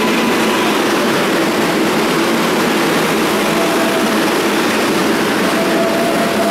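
Kawasaki R188 subway train on the 7 line moving along an underground station platform: a loud, steady rumble of the cars running on the rails, with a faint steady tone joining about halfway through.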